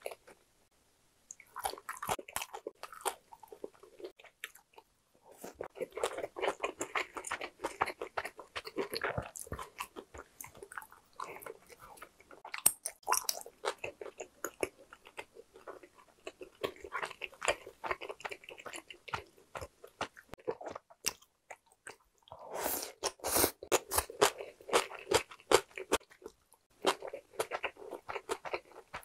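Close-miked chewing of a mouthful of rice and Korean side dishes, with moist clicking mouth sounds. It comes in stretches of a few seconds with short pauses between them.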